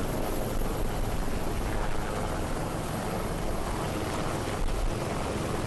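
HAL Dhruv twin-engine helicopter flying low and passing overhead: steady rotor and turbine noise with a rapid low beat from the blades.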